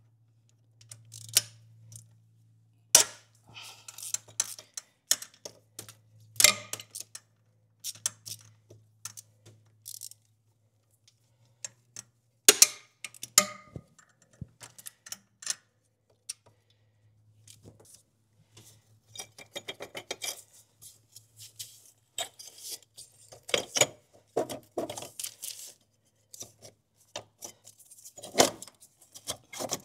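Scattered sharp metallic clinks, taps and clatter of hand tools and parts in a car's engine bay, as stiff secondary-air hoses are worked loose, over a faint steady low hum.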